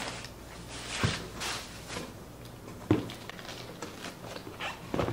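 Rustling of packaging and handling of a pair of sneakers, with a few soft knocks as the shoes are moved and set down on the cardboard box.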